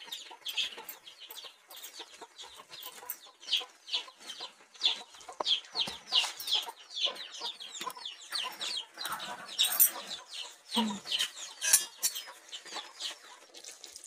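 Chickens clucking and chirping: a busy run of short, high, falling calls, several a second.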